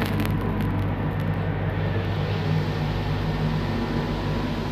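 Steady low mechanical hum inside an enclosed observation-wheel gondola, with a few faint clicks near the start.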